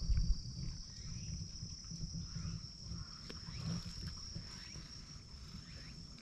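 Stray cats meowing now and then over a steady high-pitched insect drone, with a low rumble on the microphone that is loudest at the very start.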